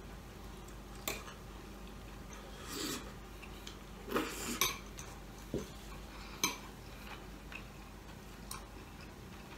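Eating noodles with a fork from a glass bowl: the fork clicks against the glass a few times, with a couple of short slurping swishes in between.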